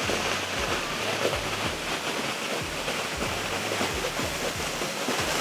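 Seven Sisters Waterfall: water rushing and falling, a steady roar of white water.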